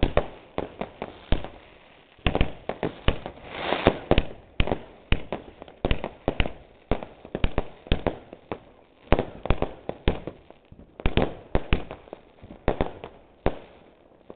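Aerial fireworks going off: a dense, irregular string of sharp bangs and pops, with a couple of short lulls.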